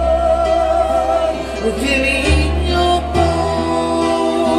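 Live rock band playing loud: a singer holds one long note over sustained bass and guitar chords. The bass note changes twice, with cymbal crashes from the drum kit.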